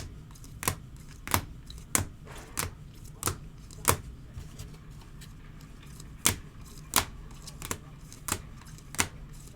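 Trading cards being handled one after another, a sharp snap or tap about every two-thirds of a second, with a short pause around the middle.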